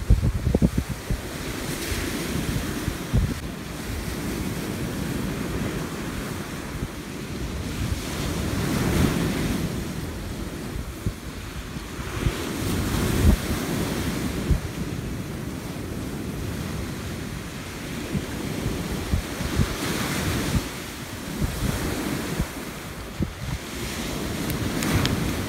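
Surf breaking on a sandy beach, the wash swelling and fading every few seconds, with wind buffeting the microphone.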